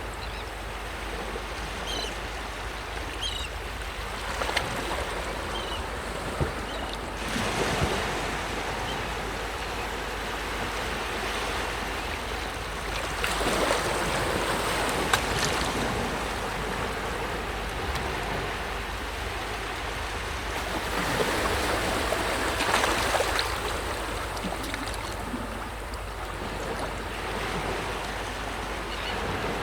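Sea waves breaking and washing onto a beach: a steady surf wash that swells louder every six to eight seconds as each wave comes in.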